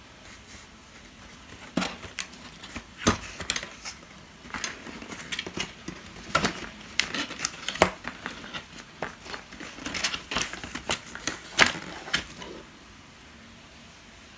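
Irregular clattering and clicking of small household objects being handled, a scatter of sharp knocks over about ten seconds, like dishes and utensils.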